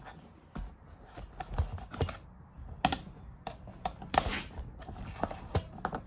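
A series of irregular sharp clicks and knocks, about a dozen.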